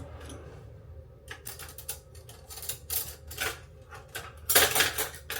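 Kitchen canister clattering and knocking as it is handled and wiped dry inside: a quick run of irregular clicks and knocks, loudest a little before the end.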